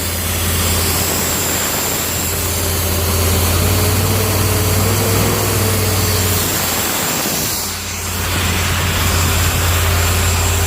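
Ford 302 V8 engine of an engine-driven air compressor running steadily, with a brief dip in level about eight seconds in; it is being left to run to charge the battery.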